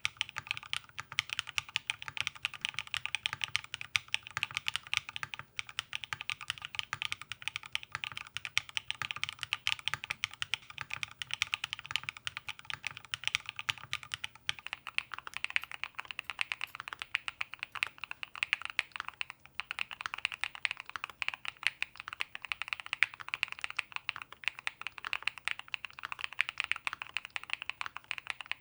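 Fast, continuous typing on a custom mechanical keyboard, a dense run of key clacks. About halfway through, the tone of the keys changes and turns brighter, with less low thud.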